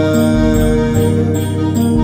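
A recorded song playing through a hi-fi system's loudspeakers, driven by a Luxman M700U stereo power amplifier, picked up by microphones at the listening position. Sustained chords over a low bass note that comes and goes, with a faint high tick about three times a second.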